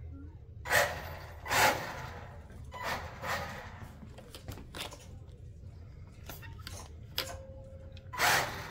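Electric radio-controlled car driving across a hard floor in short throttle bursts, giving several loud short noisy bursts, the loudest about a second and a half in and near the end.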